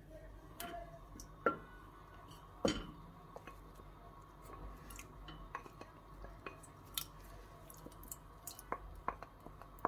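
Wooden spoon scraping and tapping against a glass bowl and a steel pot as thick tomato-and-pepper sauce is spooned in, with soft wet plops and many light taps; the sharpest knocks come about one and a half and nearly three seconds in.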